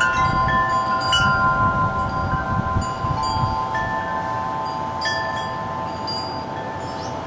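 Wind chimes ringing: several metal notes struck at irregular moments and left to ring on over one another. Wind rumbles on the microphone underneath.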